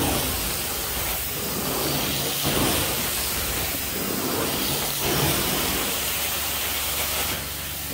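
Carpet-cleaning extraction machine running with a steady rushing hiss of its vacuum and spray, swelling slightly every couple of seconds.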